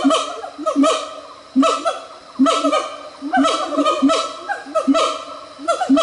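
Siamang calling: a loud series of barking whoops, one a little less than every second, each starting sharply and dropping in pitch. Siamangs boom these calls through an inflated throat sac.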